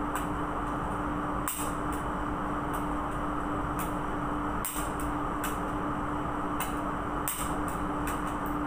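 Ratchet wrench clicking in short, irregular strokes while tightening a fuel pump assembly, over a steady low machinery hum.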